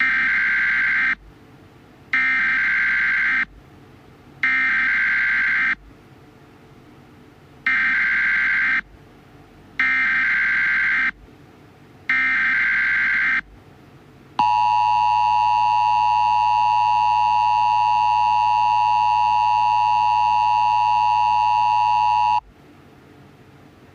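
Emergency Alert System broadcast opening: six short bursts of SAME header data tones, in two sets of three with short gaps between them, then the steady two-tone EAS attention signal, held for about eight seconds before it cuts off.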